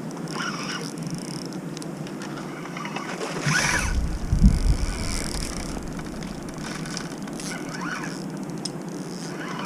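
Wind buffeting the microphone, with a strong gust making a low rumble about four seconds in, over faint scattered ticks.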